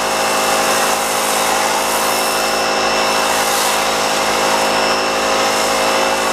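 Sun Joe electric pressure washer running steadily with its motor whine, while the foam cannon on the MTM Hydro SGS28 spray gun hisses as it sprays foam over a car.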